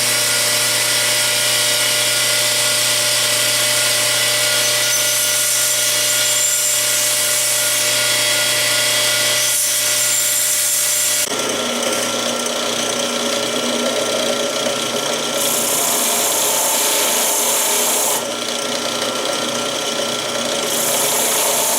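Belt sander running, its belt grinding down a dented metal part of an Italian Model 1938 Carcano folding bayonet: a steady grinding hiss over the motor's hum. The sound changes abruptly about eleven seconds in and shifts a few more times after that.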